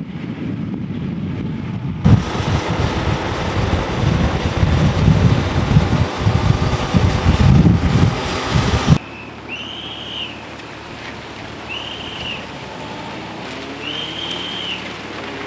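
Strong wind buffeting a microphone that is moving along with the race, loud and gusty for about seven seconds and stopping abruptly. After that comes a quieter stretch with a short high rising-and-falling tone repeated about every two seconds.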